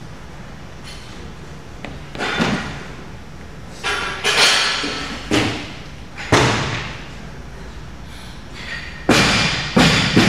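About seven heavy thuds and bangs at irregular intervals, each with a short echo in a large hall.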